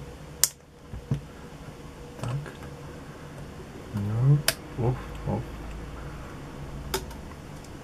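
MFOS Noise Toaster analog synthesizer giving short, low-pitched blips that glide upward, four or five of them from about two seconds in. Three sharp clicks stand out among them, the loudest sounds here.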